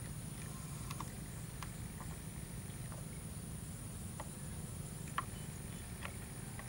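Outdoor background ambience: a steady low rumble with a continuous high-pitched hum, and scattered short faint chirps or ticks, the sharpest about five seconds in.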